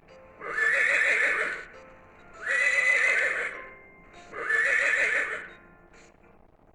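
Recorded horse whinnying three times, each neigh about a second long with a quavering, trilling pitch.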